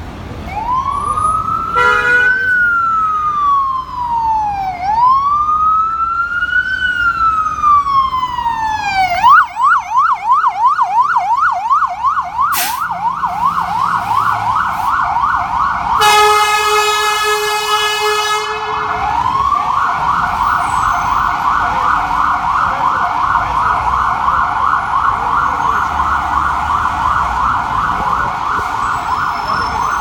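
FDNY Haz Tac ambulance's electronic siren in a slow rising-and-falling wail, switching about nine seconds in to a fast yelp. Its air horn gives a short blast about two seconds in and a long blast of about three seconds past the halfway point, when the siren drops out, before the yelp resumes.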